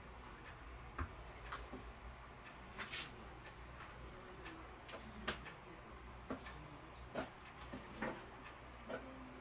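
Light, sharp clicks and taps at an irregular pace, about ten in all, some in quick pairs, over a faint steady low hum.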